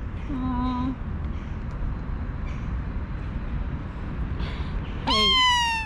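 A kitten meows once, loud and high-pitched, about five seconds in, its pitch sliding slowly down; a steady low rumble runs underneath.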